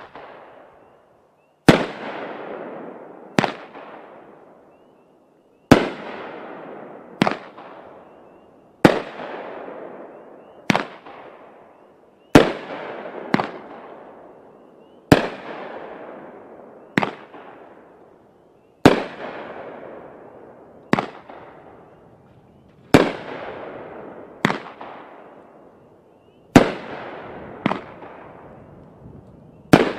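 A 500-gram consumer firework cake firing shot after shot, with a sharp bang about every one and a half to two seconds. Each bang trails off into a fading rush of noise over a second or two.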